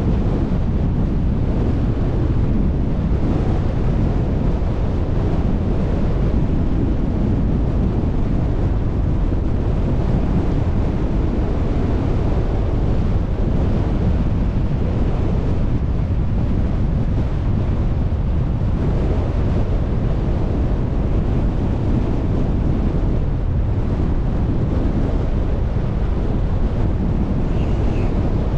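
Steady wind rushing over the microphone with the low rumble of a car driving along the road.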